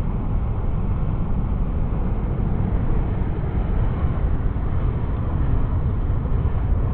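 Ocean surf churning and breaking against rocks, with wind buffeting the microphone: a steady low rumble with no distinct events.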